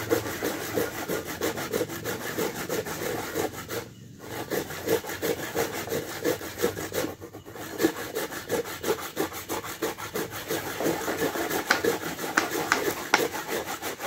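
Coconut being grated by hand: quick, rhythmic rasping strokes against a grater, pausing briefly twice, with a few sharper clicks near the end.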